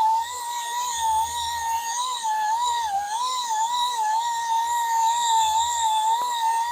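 Angle grinder fitted with a surface conditioning disc, grinding curb rash out of an alloy wheel rim: a steady high motor whine whose pitch dips and recovers every second or so.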